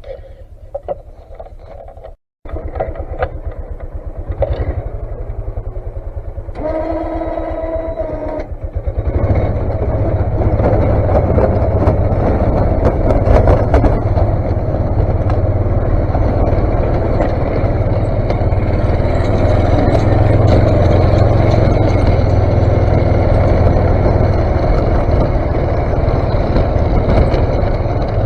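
Vehicle engine running, getting louder in steps and then running loud and steady from about nine seconds in as it works harder, with a brief pitched whine just before.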